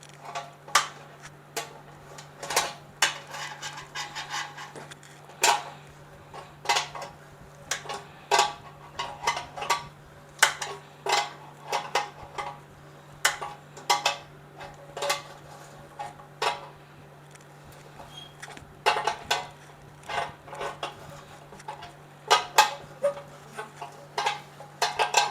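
Metal washers and hand tools clinking and tapping against the sterilizer heating element's metal fitting as the washers are refitted and tightened: irregular metallic clicks, sometimes several a second, with a short lull a little after the middle. A faint steady hum runs underneath.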